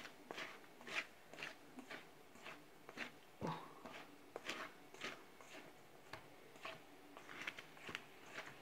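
Spatula stirring dry flour and cocoa mix in a stainless steel bowl: faint, rhythmic scraping strokes, a few a second.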